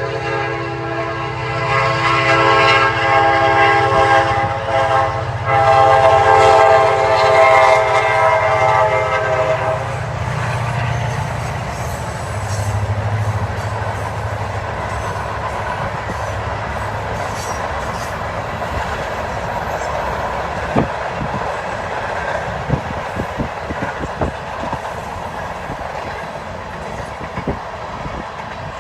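Kansas City Southern diesel freight locomotive sounding its multi-note horn for about the first ten seconds. The train then rolls by with a steady low engine drone and clickety-clack of wheels over the rail joints, the clicks growing more frequent in the later part.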